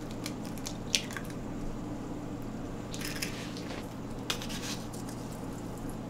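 Quiet kitchen handling: a few soft clicks and rustles over a steady low hum, as salt is taken from a wooden salt cellar and pinched over a bowl of ground meat.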